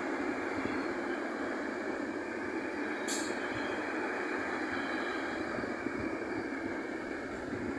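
Container freight train's wagons rolling past: a steady noise of wheels running on the rails, with a brief high hiss about three seconds in.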